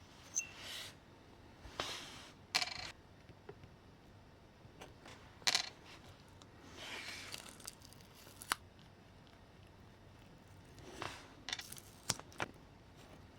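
Hand work on small parts: scattered sharp clicks and taps with short scraping and rustling sounds, irregularly spaced, with quiet gaps between them.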